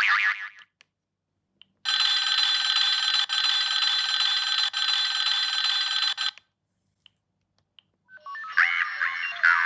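Siemens C65 mobile phone's speaker playing its stock sounds one after another: the tail of a short gliding tone, then a steady ring of about four and a half seconds with two brief breaks, then near the end the start of a melodic ringtone with sliding notes.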